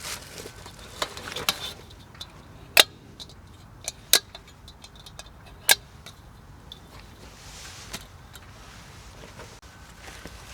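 Gear being handled: rustling, then three sharp clicks about a second and a half apart with small taps and ticks between them.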